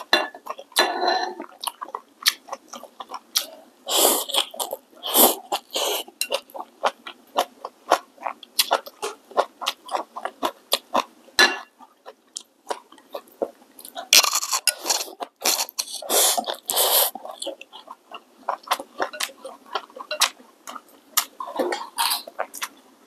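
A person eating noodles close to the microphone: wet chewing and lip smacks all through, with several loud slurps, about four to six seconds in and again between fourteen and seventeen seconds.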